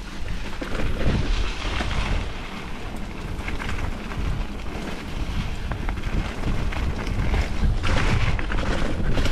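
Wind buffeting the microphone over the rumble of mountain bike tyres on a dirt trail, with scattered clicks and rattles from the bike.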